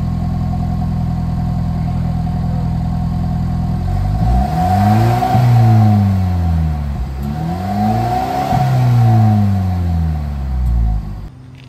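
2021 Ford Bronco engine through its stock exhaust, heard at the tailpipe in Sport mode. It idles steadily for about four seconds, then is revved twice, each rev climbing and dropping back toward idle, and it cuts off abruptly near the end.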